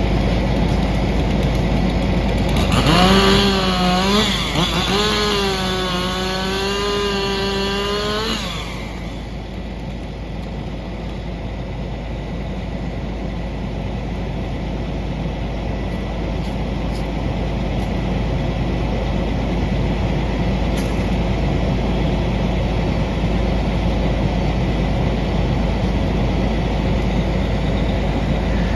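Chainsaw revving up about three seconds in and running at high speed for about five seconds, its pitch wavering as it cuts, then dropping away. A steady engine rumble from other machinery runs underneath.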